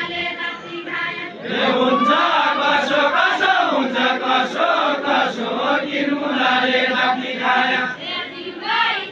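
A group of men singing a deuda folk song together in a chanting unison, many voices overlapping. It grows louder and fuller about a second and a half in.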